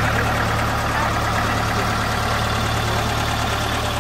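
Diesel engine of a vintage Porsche-Diesel tractor running steadily close by.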